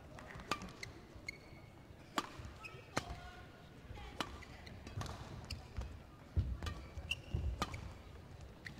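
Badminton rackets hitting a shuttlecock back and forth, about one sharp hit a second, with short squeaks of shoes on the court floor.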